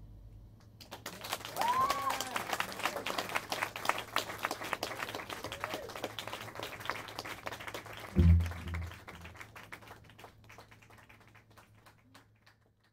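Audience applause with a few cheers after a rock band's last number, starting about a second in as the final held chord dies away. A single low thump comes about eight seconds in, and the clapping then thins out and fades.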